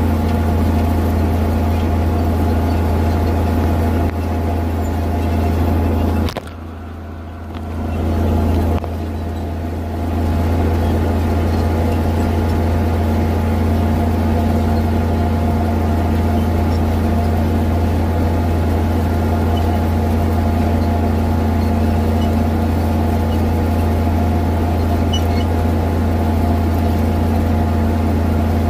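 Farm tractor engine running steadily as it drives across the field, picked up close from the hood near the exhaust stack. It briefly goes quieter from about six seconds in and is back to full level by about ten seconds.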